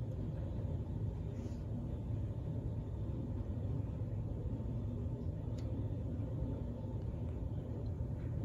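A steady low outdoor rumble with a few faint, short ticks.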